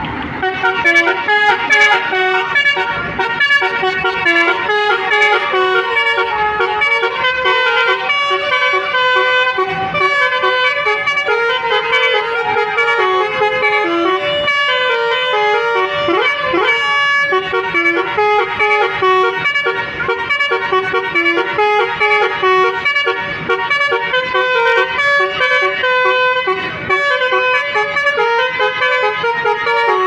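Tour bus's basuri-type telolet air horns playing a continuous tune, note after note.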